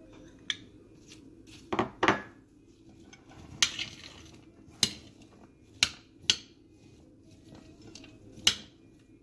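A metal spoon tossing a chickpea salad in a white ceramic dish, clinking and scraping against the dish about eight times at uneven intervals, over a faint steady hum.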